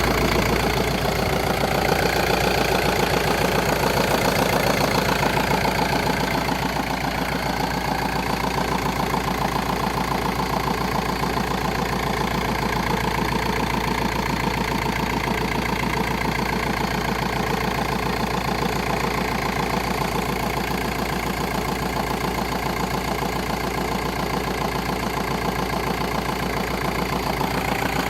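A 1.9-litre 130 hp car engine idling steadily with a strange repetitive noise in it. The owner has ruled out the damper pulley and the flywheel and does not know the cause.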